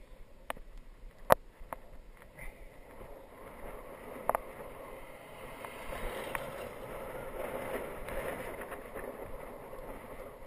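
Wind rushing over the microphone of a camera mounted on a moving road bicycle, with tyre noise on tarmac. The rushing builds and grows louder through the middle of the stretch, and a few sharp knocks from the bike or camera mount come over bumps in the road.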